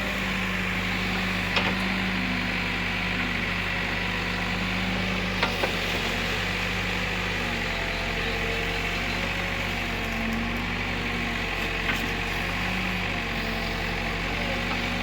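Heavy diesel machinery engine running steadily, with a few brief sharp knocks now and then.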